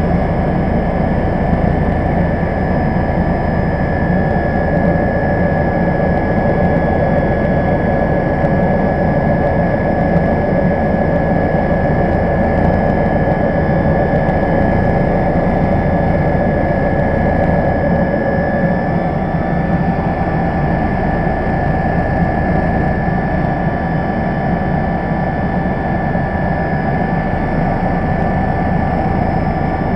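Steady in-flight cabin noise of an MBB Bo 105 helicopter's twin turboshaft engines and rotor: a high whine over a low rumble.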